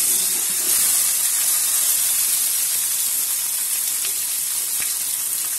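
Chopped onion freshly added to hot oil in an aluminium kadai, sizzling with a steady frying hiss that eases slightly. A couple of faint ticks come near the end.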